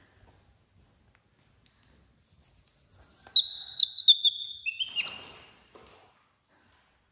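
Baby macaque screaming: a run of high-pitched, falling shrieks lasting about three seconds, starting about two seconds in and ending in a harsher, rougher cry. A hungry infant's scream, calling its mother for food.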